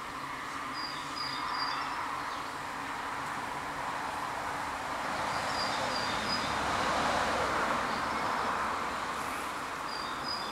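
Steady buzzing hum of a honeybee colony on the comb, swelling in the middle. Short high chirps come in little runs of three or four, three times.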